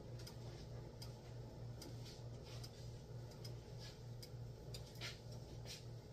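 Faint kitchen room tone: a steady low hum with scattered soft ticks and small crackles at irregular intervals, one a little louder about five seconds in.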